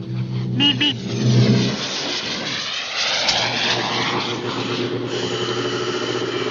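A quick double beep about half a second in, then a motor engine running loudly and steadily.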